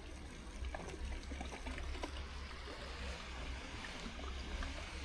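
Steady running water, a small stream trickling, with a few faint ticks here and there.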